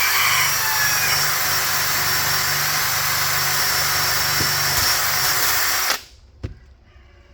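Motor-driven wire wheel scrubbing rust off a pair of steel channel-lock pliers: a loud, steady hiss of wire bristles over the motor's hum. It cuts off about six seconds in, and a single sharp click follows.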